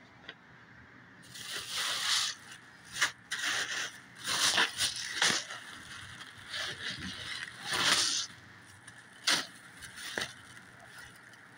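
Plastic bags of dry pasta and grain being handled and shifted, crinkling in irregular bursts with a few sharp crackles, starting about a second in.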